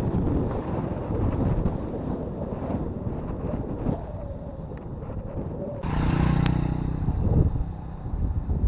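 Wind buffeting the microphone on a moving motorcycle, over a steady low engine rumble. About six seconds in, a louder pitched engine note comes in briefly.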